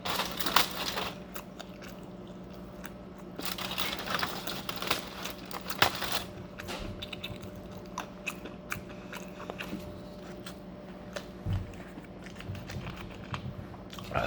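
Close-up chewing and crunching of food in the mouth, with bursts of crunching near the start and again from about three to six seconds in, then sparser, softer chewing. A steady low hum runs underneath.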